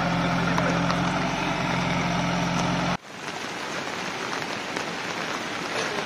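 A backhoe loader's diesel engine running steadily under a constant hiss of rain and water. About three seconds in, the engine sound cuts off abruptly, leaving only the steady rush of flowing floodwater.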